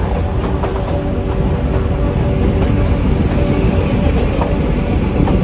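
Nilgiri Mountain Railway narrow-gauge toy train running, heard from on board: a steady rumble of the wheels and carriages with a few faint clicks from the rails.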